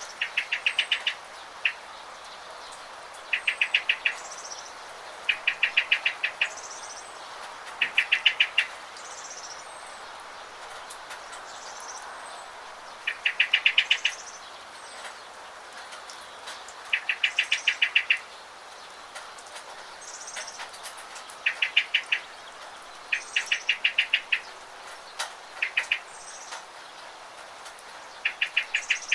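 Birds chirping: a short, fast trill of even notes repeated every couple of seconds, with thin higher calls between, over a steady hiss of rain.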